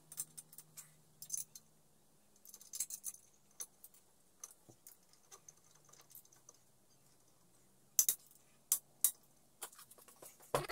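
Ratchet wrench and socket clicking and clinking on the flywheel nut of a small two-stroke engine, in short runs of ticks, with a few louder metallic clinks near the end.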